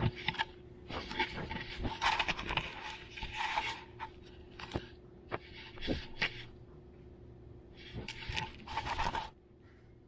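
A long-haired Chihuahua puppy nosing and pawing at the camera, its fur rubbing over the microphone: irregular spells of scraping with sharp clicks, stopping abruptly about a second before the end.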